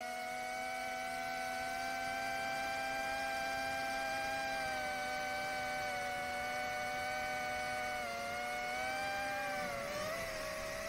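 Four BetaFPV 2004 3000kV brushless motors on a 4S FPV quadcopter spinning 4-inch three-blade props: a steady whine from the onboard camera. The pitch dips slightly about eight seconds in, then drops and wavers near the end.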